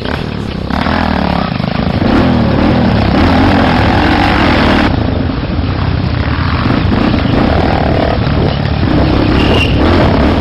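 Off-road motorcycle engine running under load on a trail, its pitch rising and falling over and over as the throttle opens and closes.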